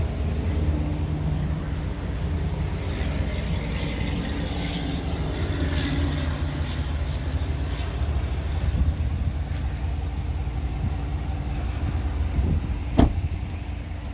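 2020 Chevrolet Silverado High Country pickup's engine running steadily, with a single sharp click or knock about thirteen seconds in.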